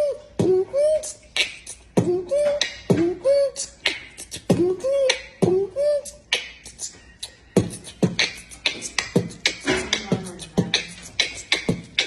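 Beatboxing: mouth percussion of sharp clicks and snaps with short hummed notes in between, in a steady rhythm of roughly two beats a second.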